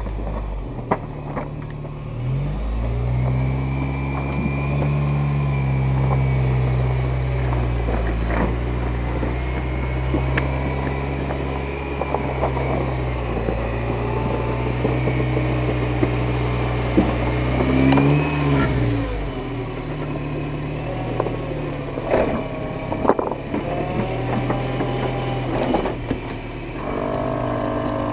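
Lifted 4x4 truck's engine working under load as it crawls over rocks: it revs up about two seconds in and holds, climbs briefly higher about two-thirds through, then drops back to a low idle. Scattered sharp knocks sound throughout.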